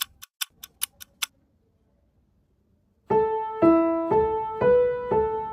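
A run of quick ticks, about five a second, that stops after just over a second. After a short pause a piano plays a slow melody in A major, one note about every half second.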